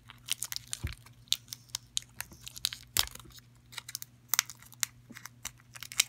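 Pink glitter slime being pulled and stretched by hand out of a clear plastic bag: irregular sharp crackles and clicks, several a second, some much louder than others.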